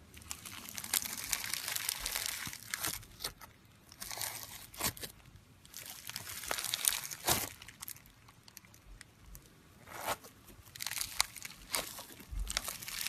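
Slime being worked by hand, giving irregular crackling and crunching with a few sharp pops, broken by short pauses.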